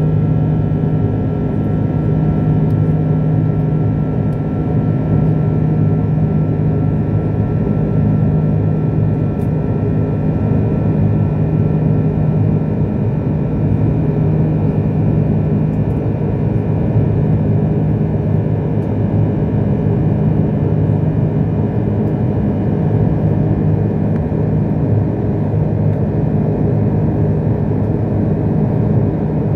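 Jet airliner cabin noise: the engines and rushing air make a steady, loud drone with a strong low hum. Fainter higher whining tones fade out about halfway through.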